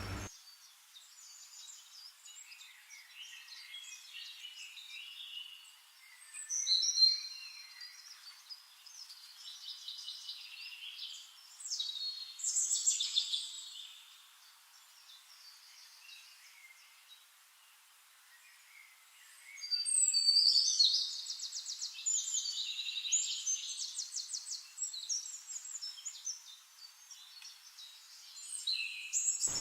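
Small birds chirping and singing in separate high-pitched phrases, the loudest a fast trill about twenty seconds in. No low sound is heard at all.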